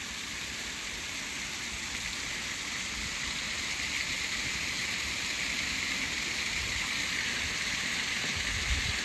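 Steady rush of flowing water at a trout farm, growing gradually louder.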